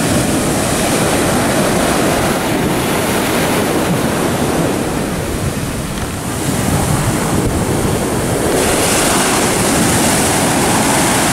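Ocean surf breaking and washing in steadily, with wind rumbling on the microphone. The sound dips briefly about halfway through, then returns with more hiss.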